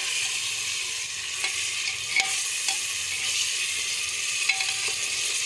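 Mutton pieces frying in hot oil in a pressure cooker, a steady sizzle, while a metal ladle stirs them and now and then clicks and scrapes against the pot. This is the bhuna stage, with the meat browning in its masala.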